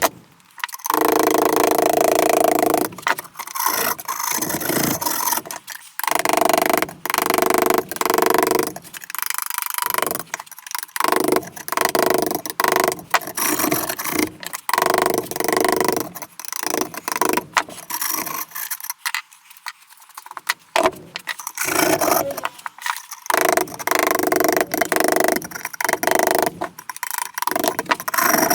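A metal tool scraping and chipping hardened refractory cement and old gasket out of a wood stove door's gasket channel. It comes in repeated metallic scraping strokes of a second or two each, with short pauses between them.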